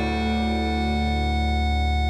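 Background music: one long held chord over a deep bass note.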